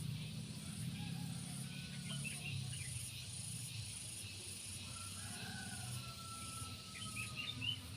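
Insects, crickets or similar, chirping in a steady high-pitched pulsing chorus, with a low steady hum underneath and a few brief bird chirps about two seconds in and again near the end.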